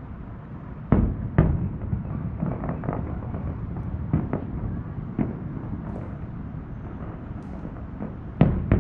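Distant aerial fireworks bursting, heard as sharp booms over a steady low rumble. There is a loud pair about a second in, several smaller bursts through the middle, and another loud close pair near the end.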